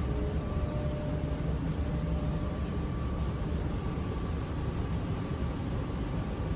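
Steady low rumble inside a Helsinki metro car, with a faint high whine that comes and goes.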